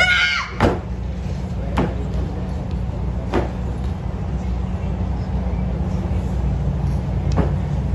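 A karateka's kiai, a loud high shout lasting about half a second, given with a kick at the start. It is followed by a few sharp snaps from her techniques, spaced one to two seconds apart, over a steady low rumble.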